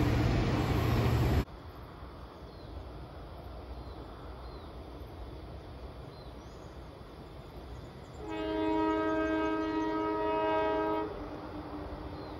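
A diesel locomotive's multi-note air horn sounds one steady chord of about three seconds, from a train approaching but not yet in sight. Before that, a loud low rumble cuts off abruptly about a second and a half in, and faint birdsong is heard in between.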